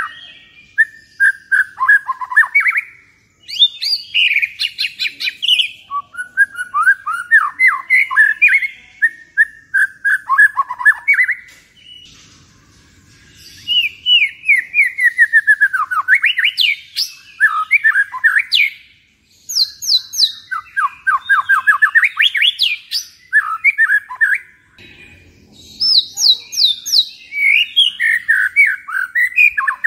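White-rumped shama singing loud, varied song phrases of rapid trills and whistled notes that sweep up and down. The song breaks off briefly about twelve and twenty-four seconds in.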